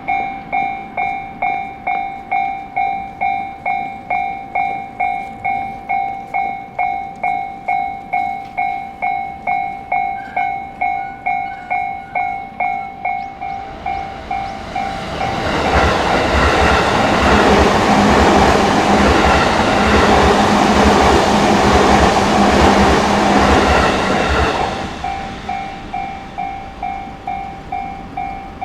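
Japanese level-crossing warning bell ringing about twice a second. About halfway through, a JR Tokaido Line train passes for roughly ten seconds, loud enough to drown the bell, its wheels clattering over the rail joints. The bell is heard ringing again near the end.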